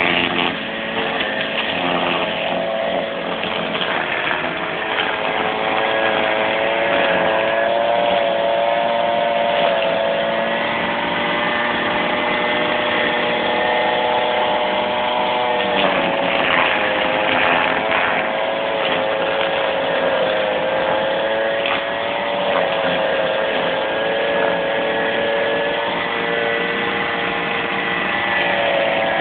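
Brush cutter's small petrol engine running steadily at working speed as the cutter clears grass and leaf litter. Its pitch wavers a little as the load changes, with a brief dip about halfway through.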